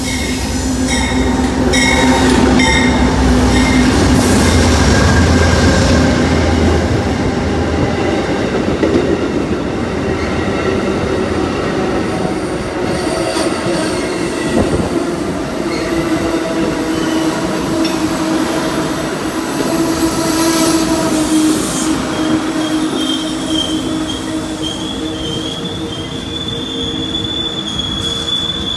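A train rolling past at close range, its wheels squealing on the rail in steady drawn-out tones. A higher, wavering squeal joins in about three-quarters of the way through and carries on.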